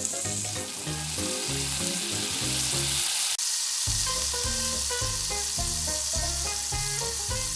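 Hot oil sizzling steadily as small egg-and-flour-coated fish pieces fry.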